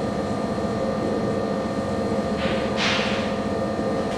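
Steady room hum made of several even tones, with two short scratchy hisses about two and a half and three seconds in, as a marker is drawn across a whiteboard.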